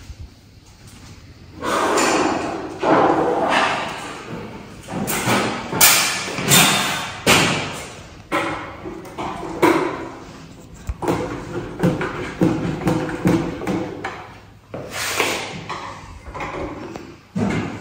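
Irregular knocks and thumps echoing in a large, bare room, about one a second, starting a second and a half in.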